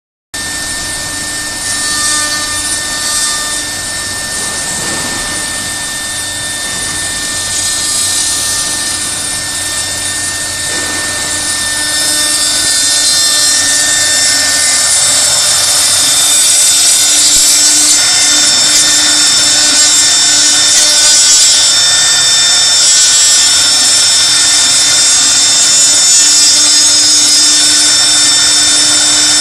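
CNC router spindle running with a steady whine while its bit carves wood, the cutting noise growing louder about twelve seconds in.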